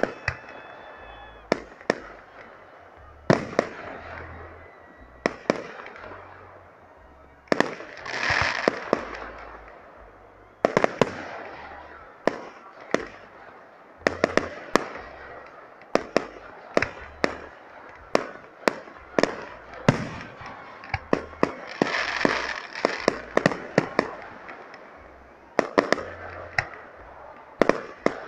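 Fireworks display: aerial shells going off in a dense, irregular series of sharp bangs. Twice there is a longer stretch of crackling.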